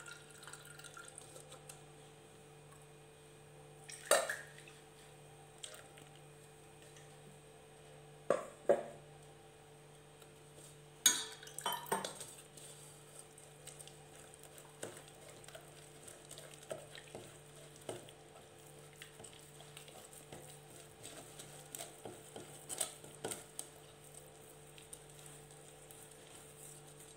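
Straining ground coconut for coconut milk: faint handling of a plastic sieve and steel vessels, with a few sharp clinks and knocks about four, eight and eleven seconds in, over a steady low hum.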